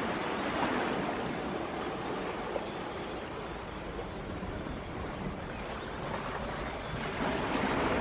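Sea waves washing against shoreline rocks: a steady rushing noise that swells about a second in and again near the end.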